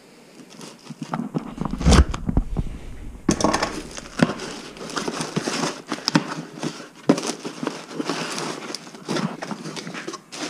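Cardboard shipping box being cut open and unpacked: flaps pulled back and packing paper inside crinkling and rustling, with many small crackles. A heavy thump about two seconds in.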